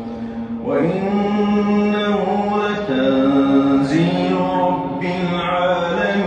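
A man's solo Quran recitation in the melodic, drawn-out tajweed style, the voice holding long notes of a second or two and sliding between pitches.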